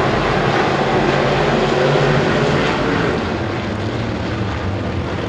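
Pack of IMCA Modified dirt-track race cars with V8 engines running at race speed, a dense blend of engines heard from the stands. It swells about two seconds in and eases a little after three.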